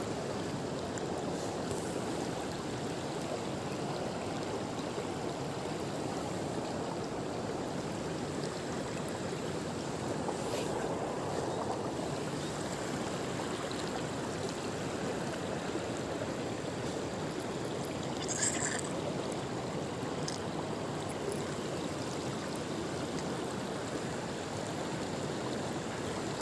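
Shallow, rocky river rushing over stones in a steady, even rush of water, with two brief faint clicks, one about ten seconds in and one a little past halfway.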